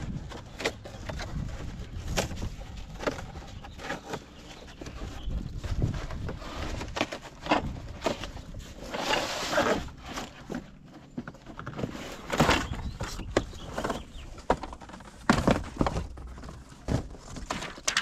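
Handling noise from unpacking and moving a metal assist rail: irregular knocks and clunks, with several longer rustling or scraping bursts, the loudest about nine and twelve seconds in.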